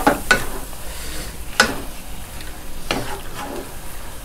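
Wooden spatula scraping and knocking against a stone-coated wok as it stirs shrimp and squid in a chilli paste sauce. The food sizzles steadily underneath, with a handful of separate scrapes about a second apart.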